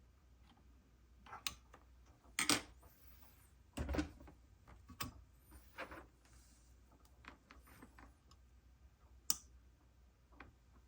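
Irregular clicks and knocks of small tools and parts being handled on a workbench, about eight in all and loudest around the middle, over a faint steady low hum.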